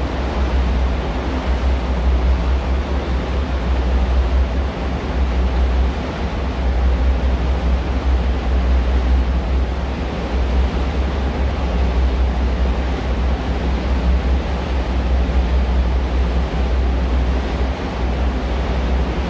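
Steady rushing wind buffeting the microphone aboard a moving tour boat, with a low engine drone beneath.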